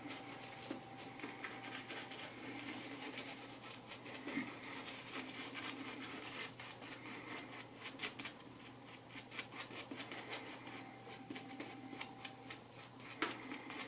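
Faint, irregular scratchy crackling of a shaving brush working soap into lather, many small ticks over a low steady hum.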